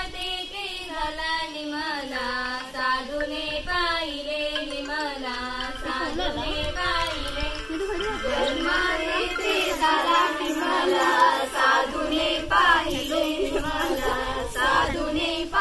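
A group of women and girls singing a traditional Marathi folk song together. More voices join about halfway through and the singing gets louder.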